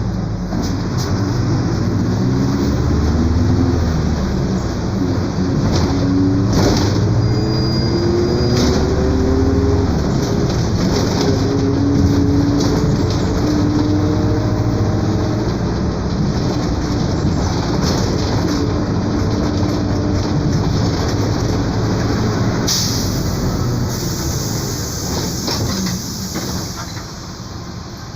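Mercedes-Benz OF 1721 BlueTec 5 bus under way with its differential whining ('roncando'): a pitched whine over the engine drone that climbs and then falls back as the bus speeds up and slows. A hiss comes near the end as the overall sound dies down.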